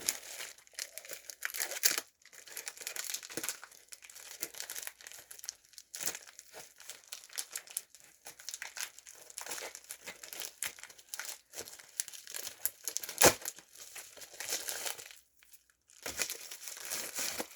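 Packaging of a mailed parcel crinkling and tearing as it is opened by hand: irregular crackles and rips, with a short pause near the end.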